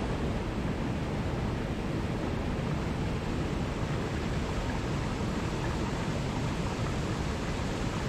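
Small waterfall cascading over rocks into a mountain stream: a steady, even rush of water.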